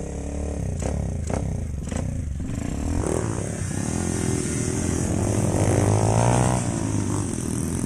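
A pack of small-engined racing mopeds revving and pulling away together, several engines overlapping, their pitch rising and the sound loudest about six seconds in.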